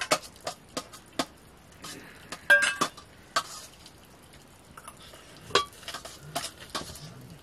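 A metal spoon clinking and scraping against a steel plate in irregular taps as rice and mushroom curry are mixed and scooped. The loudest is a brief ringing clink about two and a half seconds in.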